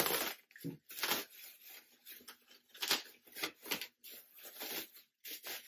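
Plastic bubble wrap being unwrapped by hand, rustling and crinkling in irregular bursts.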